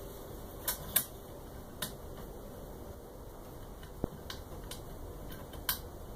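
Scattered light clicks and taps, about seven over six seconds, the sharpest about a second in, from hands handling a 3D printer's heat bed and its wires, over low steady background noise.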